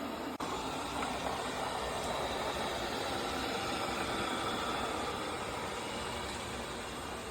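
Tapo RV30 Max robot vacuum running: a steady drone of motor and rushing air, briefly broken about half a second in.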